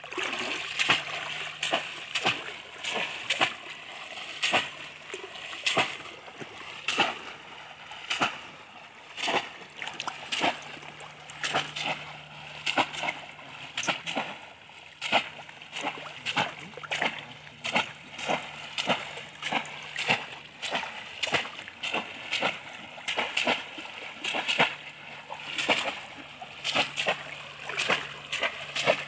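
Bamboo cone fish traps (polo) slammed down again and again into shallow muddy water, with sharp splashes about one to two a second, mixed with the sloshing of men wading through it.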